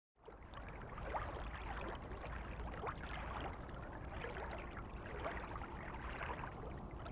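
Faint outdoor ambience: a steady low rumble with scattered short chirps, fading in just after the start.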